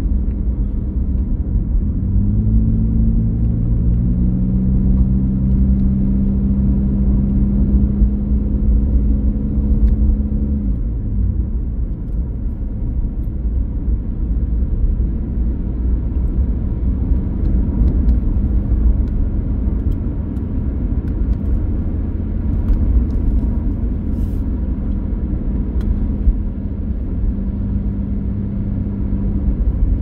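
A car driving: a steady low engine and road rumble with an engine hum that shifts in pitch a couple of seconds in, fades around ten seconds in, and rises again near the end.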